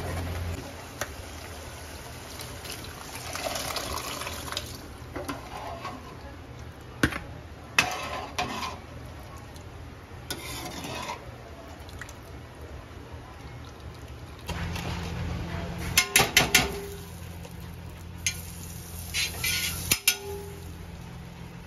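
Metal ladle stirring a watery chickpea curry in a steel kadai: liquid sloshing and splashing, with the ladle clinking against the pan, including a quick run of four clinks past the middle. A steady low hum runs underneath.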